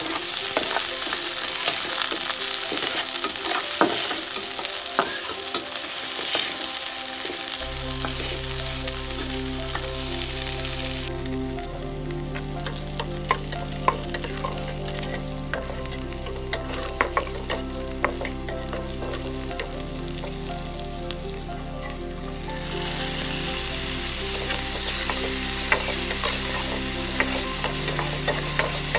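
Chopped onions and green chillies sizzling as they fry in hot oil, with the spatula scraping and clicking against the pan as they are stirred. The sizzle eases off from about 11 s in, then comes back strongly about 22 s in.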